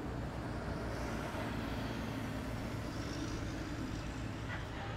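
City bus running, heard from inside the cabin: a steady engine hum with road noise.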